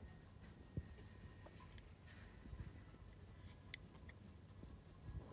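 Faint, steady ticking of a silver English pocket watch's movement, about five ticks a second, with a light knock about a second in as the watch is handled.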